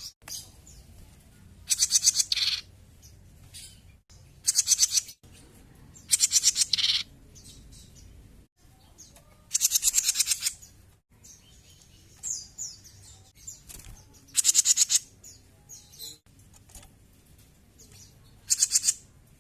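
Cucak jenggot bulbul singing hard: short bursts of rapid, high trilling, about six phrases a few seconds apart, with fainter calls between them.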